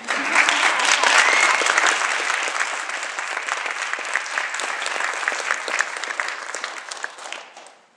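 Audience applauding, loudest at first and dying away near the end.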